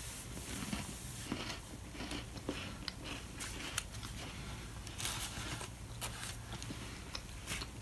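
A person chewing and crunching small crisp MRE vanilla cookies, with irregular crunches and light clicks.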